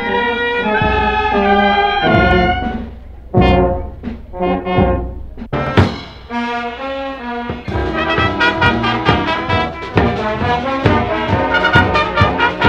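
Brass band (Brazilian 'banda de música') playing: held brass chords at first, then a few short punched chords, then from about halfway a brisk tune over a steady beat of drums and cymbals.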